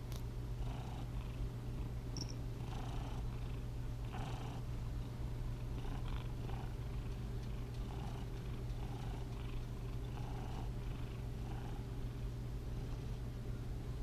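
Domestic cat purring steadily, a continuous low rumble with soft breathy pulses about once a second.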